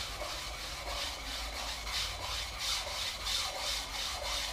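A hand polishing stone rubbed back and forth along a short track speed skate blade clamped in a sharpening jig, stone scraping on steel in even strokes about three a second: the polishing stage that follows the sharpening.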